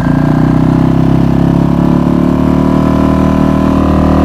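Suzuki DF2.5 single-cylinder four-stroke outboard motor running steadily in gear, driving an inflatable dinghy along.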